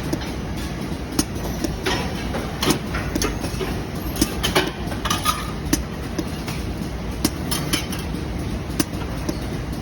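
Machinery running with a steady low rumble and irregular sharp clicks and ticks.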